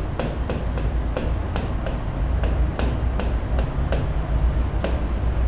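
Marker pen writing on a board: a quick run of short scratchy strokes and taps, about three a second, over a steady low hum.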